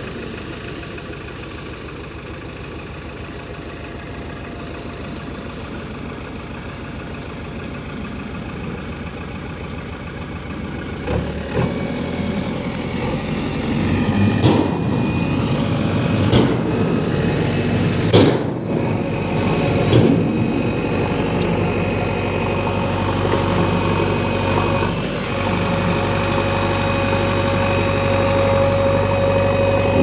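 Diesel engine of an Ashok Leyland 3718 tipper truck running steadily with its Hyva tipper body raised, growing louder about a third of the way in. A few sharp knocks come through in the second half.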